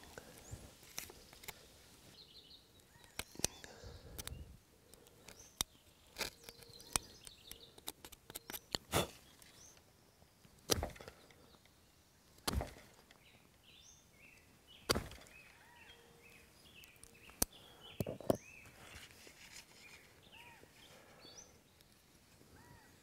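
Knife blade of a Leatherman Free P4 multitool whittling a green wooden stick: irregular scraping cuts and sharp clicks, a few strokes much louder than the rest. Small birds chirp in the background.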